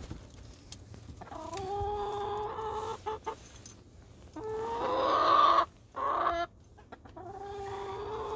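Chickens calling, with several long drawn-out calls, each lasting a second or more, and one short call between them.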